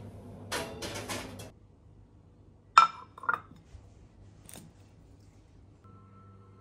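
Two clinks of crockery about half a second apart, the first sharp and ringing, as a ceramic plate is knocked or set down. Before them comes a short hiss of about a second; near the end a steady held tone starts from the TV.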